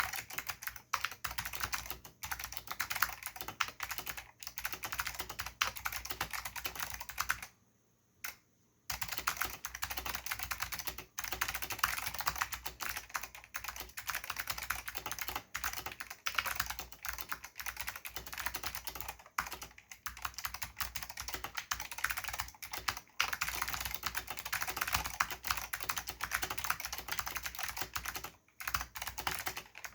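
Steady, fast typing on a Filco Zero mechanical keyboard with clicky Alps SKCM White switches, lubed with dry lube, under Alps doubleshot keycaps: a dense run of sharp key clicks. About seven and a half seconds in the typing stops for about a second, broken by a single keystroke.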